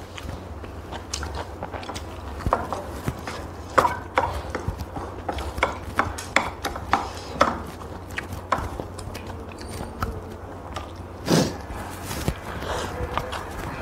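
Close-up eating sounds of instant curry noodles: chewing, slurping and sips of soup, with short clicks of chopsticks against bowls, and a longer slurp about eleven seconds in. A steady low hum runs underneath.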